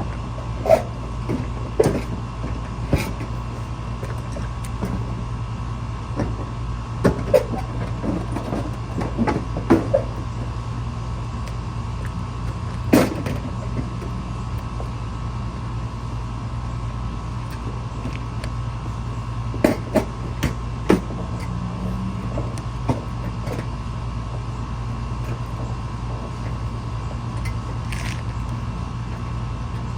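Scattered knocks and clunks of car body parts being handled and tried in place while fitting a front bumper, about a dozen over the stretch, over a steady low hum.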